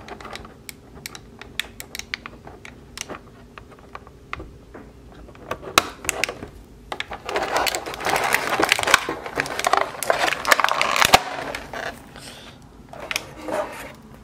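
Small clicks and taps as the rubber ties holding an action figure in its clear plastic blister tray are worked at. About seven seconds in, the tray gives a dense crinkling and crackling for about four seconds as the figure is pulled free.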